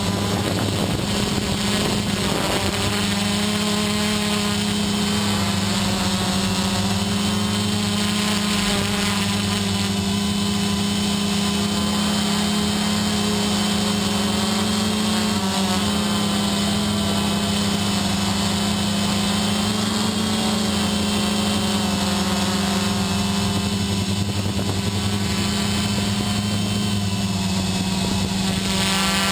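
An XP2 quadcopter's four electric motors and propellers running in flight, heard from the camera mounted on it. They make a steady hum whose pitch shifts slightly now and then as the motor speeds change.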